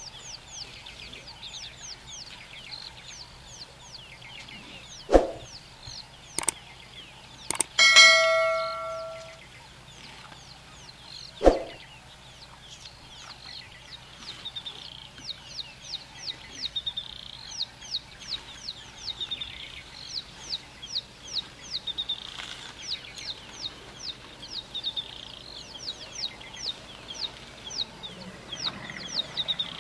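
Birds calling continuously in short, high, falling chirps, several a second. A few sharp knocks, and about eight seconds in, a single loud ringing metallic ding that fades over a second or so.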